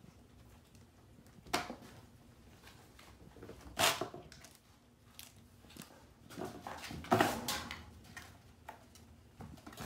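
Kittens scrambling and pouncing on and around a cardboard pizza box: a few scattered scuffs and knocks. The loudest comes about four seconds in, and a cluster follows around seven seconds.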